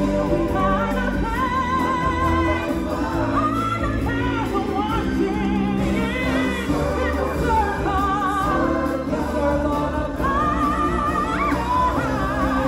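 Live stage-show music: several voices singing with vibrato over a backing band with a steady bass line.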